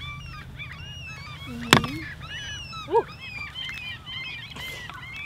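One sharp axe strike about 1.7 seconds in, splitting a firewood log. Many birds are calling throughout, with short overlapping chirps and honks.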